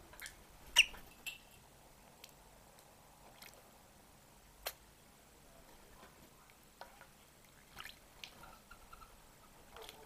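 Australian ringneck (twenty-eight) parrot bathing in a shallow bird bath: scattered short splashes and drips, the loudest about a second in, with a few more near the end.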